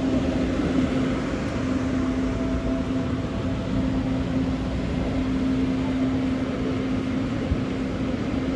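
Electric multiple unit train running, with a steady low hum over rumbling noise; a fainter higher tone fades out about four seconds in.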